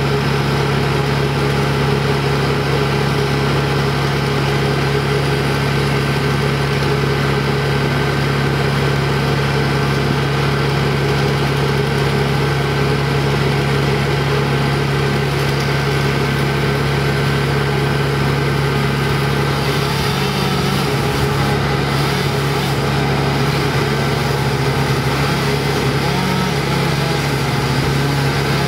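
A small petrol engine runs steadily with an even hum throughout. From about two-thirds through, a chainsaw cuts into the oak trunk, and the sound changes.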